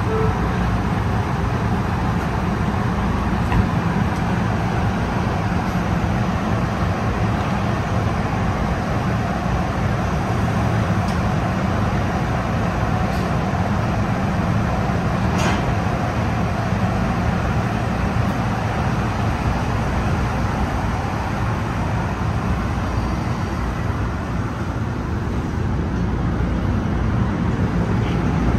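NJ Transit MultiLevel double-decker commuter train standing at the platform with a steady low hum and rumble, then starting to pull out near the end as the rumble grows. There is a single sharp click about halfway through.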